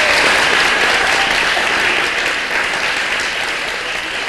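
Audience applauding, a dense, even clapping that slowly tapers off.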